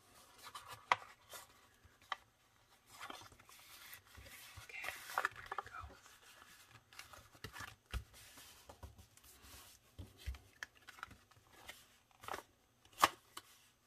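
Paper handling: rustling and scraping as a plastic folding tool is pressed and rubbed along a paper envelope's edge, with scattered light clicks and taps.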